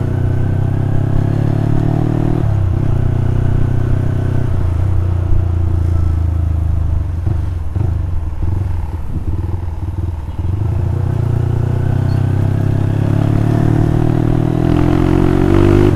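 Yamaha Scorpio 225's single-cylinder four-stroke engine breathing through a short aftermarket cream pie silencer, heard from the saddle while riding, with a bassy note. The engine holds a steady pull, drops off the throttle with an uneven, crackly burble about eight seconds in, then picks up again, rising in pitch near the end.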